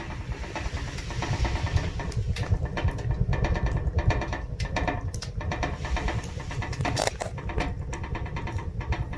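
Firewood burning in a wood stove: a steady low rumble of the fire with frequent sharp crackles and pops of the burning oak logs, a cluster of louder pops about seven seconds in.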